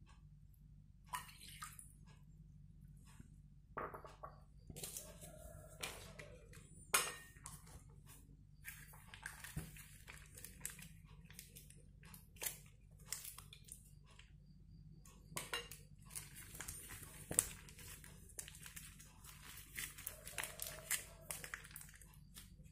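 Faint handling sounds as plastic bags of glue and thick white paste are squeezed into a glass bowl: scattered crinkles and rustles of the plastic, with small clicks and taps against the bowl, over a steady low hum.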